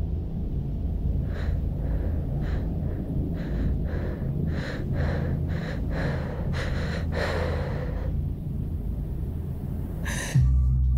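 A woman's gasping breaths, about a dozen, coming faster and stronger, over a steady low rumbling drone. Near the end a louder low drone suddenly cuts in.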